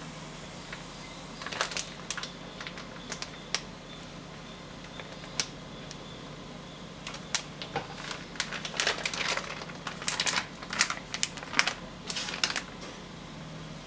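A flour bag crinkling and rustling in the hand while flour is shaken out into a steel bowl: a run of short, sharp crackles, sparse at first and coming thick and fast in the second half. A steady low hum runs underneath.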